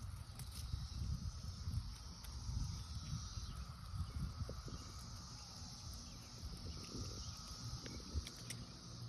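Periodical cicadas singing in a steady chorus, a continuous high, even drone, over a fluctuating low rumble on the microphone and a few faint clicks.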